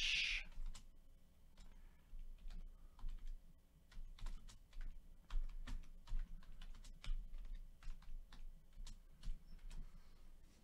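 Typing on a computer keyboard: irregular key clicks, several a second, with short pauses.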